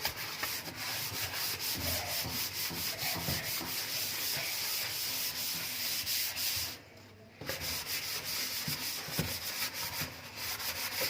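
Scouring pad scrubbing a stainless-steel kitchen sink: a fast, continuous rasping rub of stroke after stroke, pausing briefly about seven seconds in.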